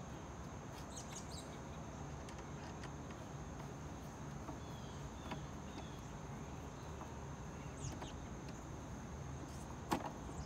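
Quiet outdoor background with a few faint bird chirps and light handling ticks as screws are driven by hand into a Dolphin robotic pool cleaner's housing. One sharp click near the end.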